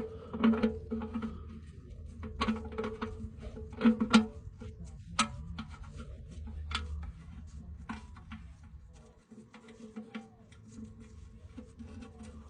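Music with a steady low drone, with scattered sharp clicks and knocks that are densest in the first five seconds and thin out after.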